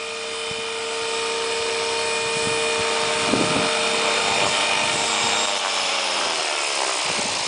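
Outrage G5 RC helicopter's motor and rotor whining steadily, then falling in pitch over the last two seconds or so as the rotor spools down.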